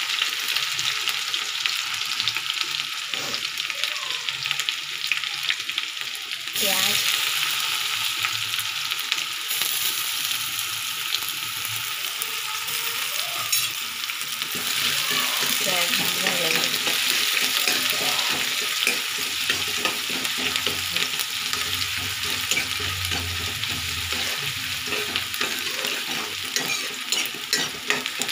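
Garlic-ginger paste sizzling in hot oil in a metal kadhai, stirred with a spatula that ticks and scrapes against the pan. About six and a half seconds in, chopped onion goes in and the sizzle gets louder.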